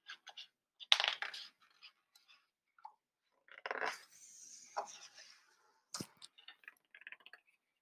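Pages of a hardcover picture book being handled and turned: soft paper rustles with a few light taps and a sharp click about six seconds in.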